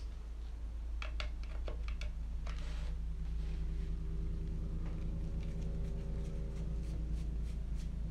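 Light clicks and ticks of a screwdriver and small screws on a plastic RC car chassis. From about three seconds in, a steady low drone of a helicopter flying about outside sets in and holds.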